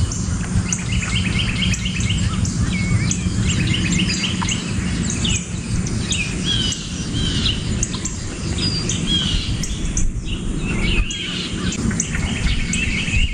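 Several birds chirping and calling over and over, with short whistled notes, over a steady low rumble.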